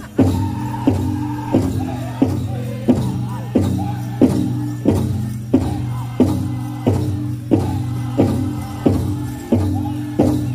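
Powwow drum group singing a chicken dance song: male voices in unison over a large bass drum struck in a steady beat, about one and a half beats a second.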